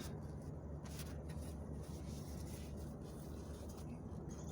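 Faint rubbing of a rag wiping oil off engine mating surfaces, with a few light clicks of handling, over a steady low hum.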